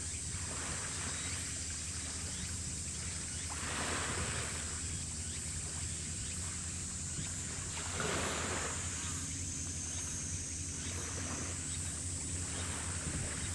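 Low, steady drone of a ship's engines over the water, with water washing up in surges about every four to five seconds and a steady high hiss above.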